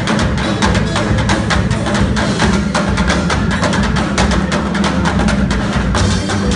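Marimba band playing: many marimbas struck with mallets in a rapid, dense stream of notes over a steady low bass line.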